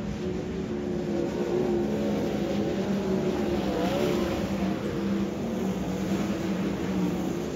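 Sprint cars racing on a dirt oval, their V8 engines running hard in a steady, many-layered drone. About four seconds in, the engine pitch dips and climbs again.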